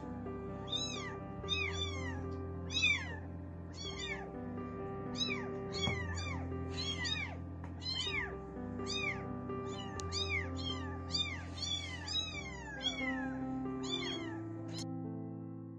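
Young kittens meowing repeatedly, short high-pitched cries that rise and fall, a little more than one a second, over background music with sustained notes; the cries stop about a second before the end.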